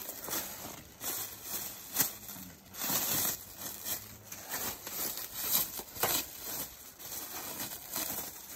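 Clear plastic film being peeled off a length of metal roofing drip edge and bunched in gloved hands, crinkling and tearing in irregular bursts with a few sharp crackles.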